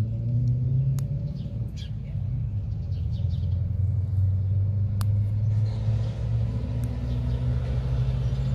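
A steady low motor drone, engine-like and holding an even pitch, with a few faint sharp clicks.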